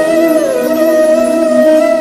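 Instrumental background music: a held melody line that dips in pitch and returns over a steady sustained chord.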